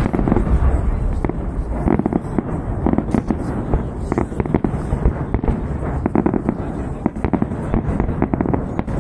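Large aerial fireworks display: shells bursting in quick succession, a dense run of bangs and crackles over a continuous low rumble.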